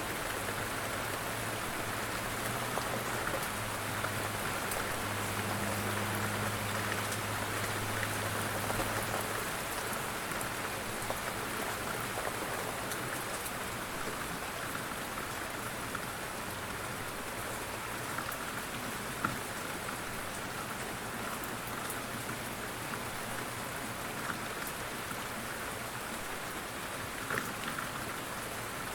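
Steady rain falling, an even continuous hiss with a few sharper individual drops standing out. A faint low hum sits under it for the first third.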